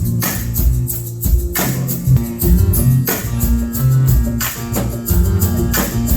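Gospel band music with a steady beat: plucked guitar over bass notes, drums and tambourine, playing without singing.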